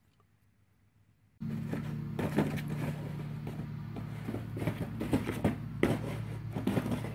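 Near silence at first. About a second and a half in, a cardboard box starts being batted, knocked and dragged about on a dirt floor by a jaguar: a dense run of knocks and scrapes over a steady low hum.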